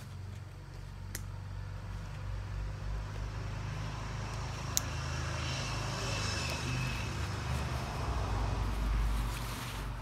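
Low engine rumble of a passing vehicle, swelling to its loudest near the end. Two light clicks about a second in and near the middle, from the backpack's plastic strap clips being handled.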